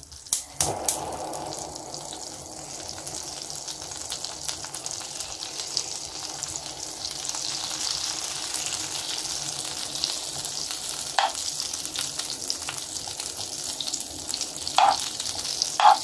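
Butter melting and sizzling in a hot pan: a steady crackling hiss as it foams. A spatula stirs it, with a few short knocks against the pan.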